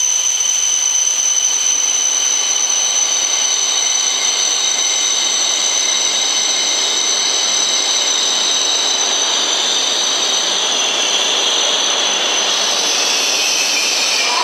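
H5 series Shinkansen train pulling in at low speed, a steady high electrical whine over a rushing hiss. Near the end the whine falls in pitch as the train slows.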